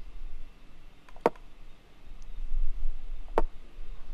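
Two short clicks of an online chess board's piece-move sound, about two seconds apart, as one move is answered by another.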